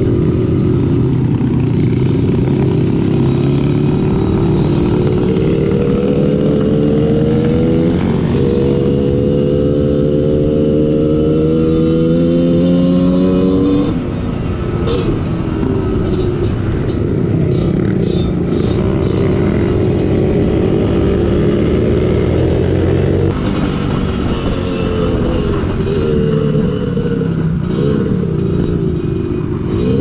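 Trail motorcycle engine under way, revving up through the gears. The pitch climbs, breaks at an upshift about eight seconds in, and climbs again before the revs drop off sharply about halfway through. It rises again near the end.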